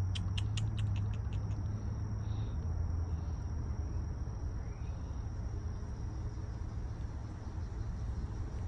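Outdoor insect ambience: crickets trilling in one steady high note, with a run of quick chirping clicks that fades out in the first second or so, over a low steady hum.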